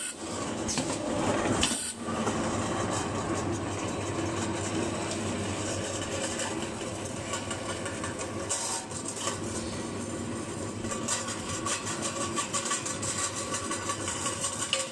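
Automatic tin can seaming machine and its conveyor running, a steady mechanical clatter and hum, with a few sharp clicks in the first two seconds.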